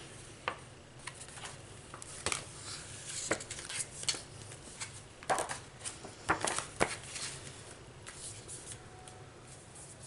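Hands rummaging through cardboard packaging: irregular rustles, taps and scrapes, with a few louder knocks a little past the middle.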